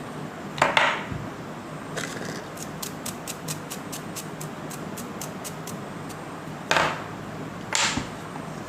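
Metal router parts being handled during a bit change: a scrape, then a run of quick light clicks, about five a second for three seconds, then two louder clatters near the end.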